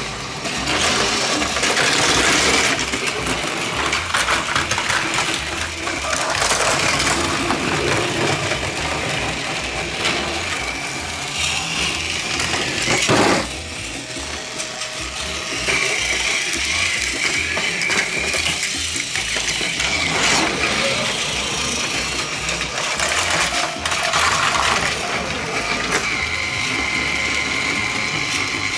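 Battery-powered toy trains running on plastic track: a continuous clicking rattle of wheels over track joints mixed with the whir of their small electric motors. A thin steady motor whine comes in about halfway through.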